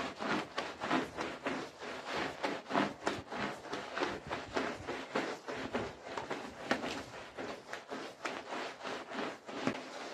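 Stiff-bristled push broom scrubbing a wet, soap-lathered rug on concrete, in quick back-and-forth strokes at about three a second.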